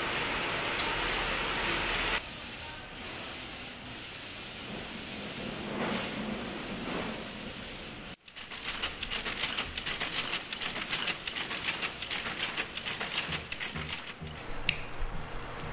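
Cigar factory machinery running: a steady hiss for about two seconds, then quieter, and after a brief break about eight seconds in, a fast, irregular mechanical clatter as cigar-making machines and a roller conveyor run.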